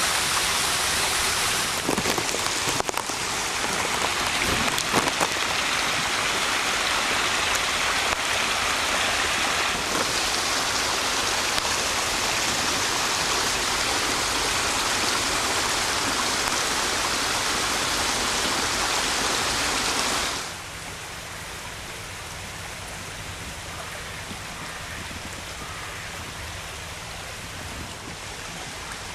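Water rushing down a stone-lined open culvert stream, a loud steady splashing rush. About twenty seconds in it drops to a quieter, softer flow.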